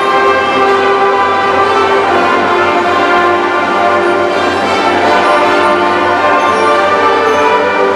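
Live school band and mariachi ensemble playing together: brass and violins holding sustained notes.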